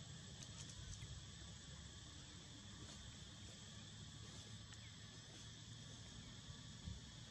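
Faint, steady chorus of insects: an even high trill running without change over a low background rumble, with a few faint clicks.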